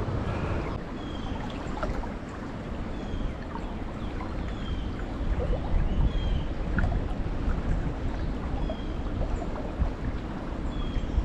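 Strong wind buffeting the microphone in a steady low rumble, over running stream water.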